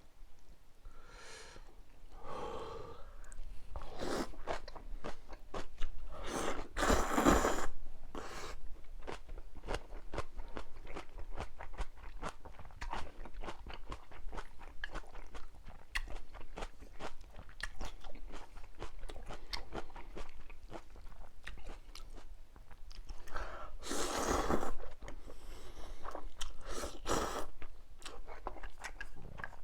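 A person eating ramyun noodles and kimchi close to the microphone: wet chewing with crisp crunching and many small mouth clicks. There are several longer, louder stretches of eating noise, the biggest at the start and about two-thirds of the way through.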